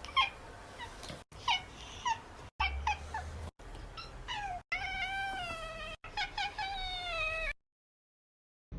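Domestic cat meowing repeatedly, in abruptly cut snippets. Short meows come first, then two long, drawn-out, wavering yowls that fall in pitch.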